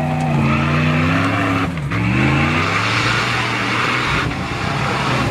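Vehicle engine running under way. Its pitch drops sharply just before two seconds in and then climbs again, as at a gear change. A steady hiss runs alongside it and stops about four seconds in.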